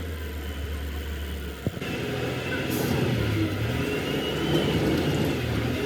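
An engine running steadily, with a single sharp click a little over a second and a half in, after which the engine note shifts and wavers; a faint high whine sits above it.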